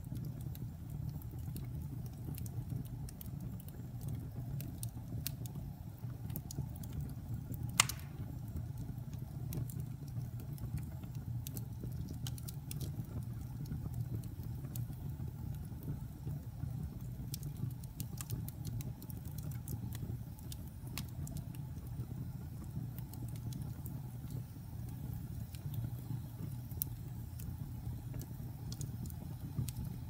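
Wood fire burning in a fireplace: a steady low rumble of flames with scattered sharp crackles and pops from the burning logs, one louder pop about eight seconds in.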